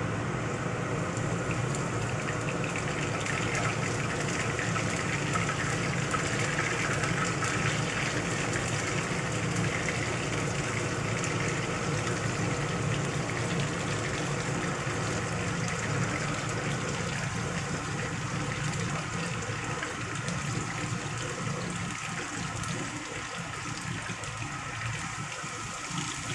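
Flour-battered chicken pieces sizzling and crackling in hot oil in a frying pan as more pieces are dropped in, over the steady hum of a kitchen range-hood extractor fan.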